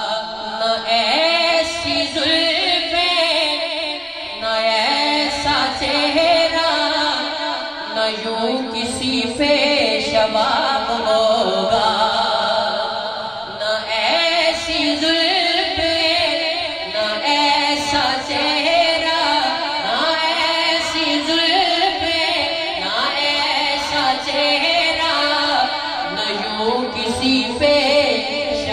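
A naat reciter singing a long, wavering vocal line through a sound system.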